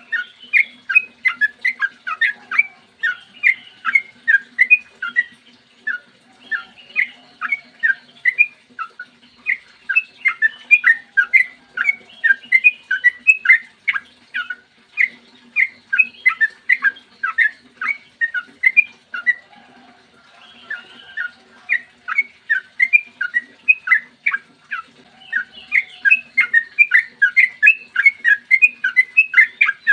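Yellow-vented bulbul (trucukan) singing long rapid runs of short, clear chirping notes, several a second. The runs break off briefly a few times.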